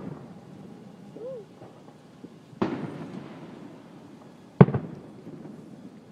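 Aerial fireworks shells bursting: a boom about two and a half seconds in with a long trailing rumble, then a sharper bang two seconds later, each dying away in echo.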